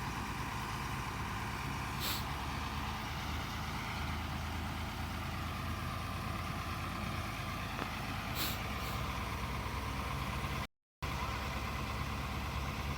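Tata Hitachi 200 excavator's diesel engine running steadily while it digs, with two short hisses about two seconds in and past the middle. The sound cuts out for a moment near the end.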